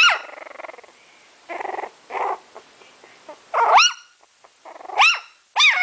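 Very young puppy giving high little howling cries, four of them, each rising and then falling in pitch, with two short rough growls between the first and second.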